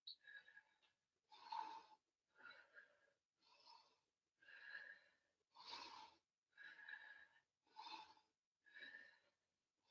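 Faint, rhythmic breathing of a woman doing leg lifts, about one breath a second, breathing out with each lift of the leg.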